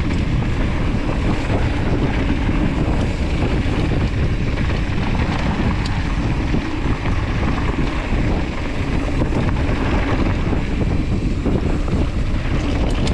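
Steady wind buffeting the camera microphone at speed, over the rumble of mountain bike tyres rolling fast down a dirt singletrack.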